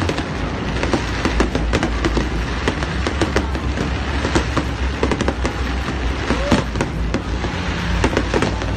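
Fireworks display: a dense, unbroken string of pops, bangs and crackles from bursting shells, many per second and loud throughout.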